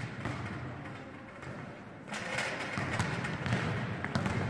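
Echoing sports-hall din with a few sharp knocks of balls being struck or bouncing; it grows louder about two seconds in.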